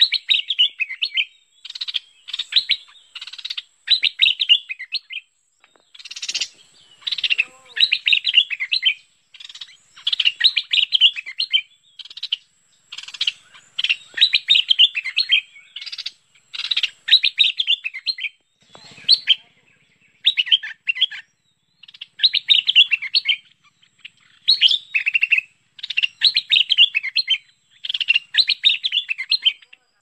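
Stripe-throated bulbul song: short, bubbling, chattering phrases of about a second each, repeated one after another with brief gaps between them.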